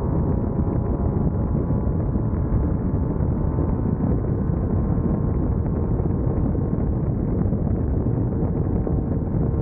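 Class 1600 off-road race buggy's air-cooled 1600cc VW engine running at speed, a steady, dense rumble with the car's noise over rough ground.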